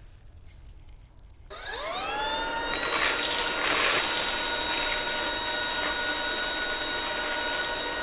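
A Shark DuoClean vacuum switches on about a second and a half in, its motor whine rising in pitch as it spins up, then runs with a steady high whine. Its floor head picks up Cheerios off the tile, with a short spell of rattle and crunch around three to four seconds in.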